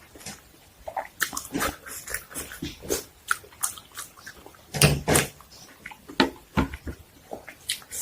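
Close-miked eating: irregular wet chewing and mouth smacking, with many short crisp clicks.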